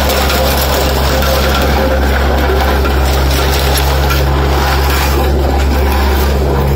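Engine of an L&T Case road roller running steadily with a constant low hum as it rolls over bottles.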